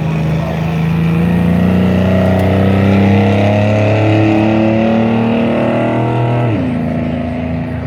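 Off-road vehicle engine pulling hard, its pitch climbing steadily for about six seconds, then falling sharply as it comes off the throttle and settling at a lower steady note.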